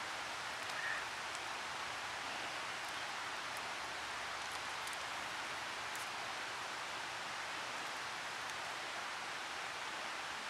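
Steady, even hiss of outdoor background noise.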